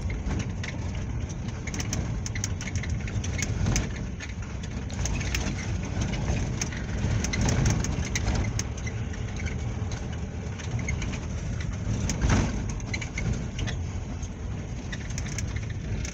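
A vehicle travelling along a road: steady engine and road noise with rumbling wind on the microphone, scattered through with short crackles, and a louder gust about twelve seconds in.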